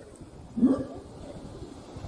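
Orangutan call: one short, low vocalisation with a bending pitch about half a second in.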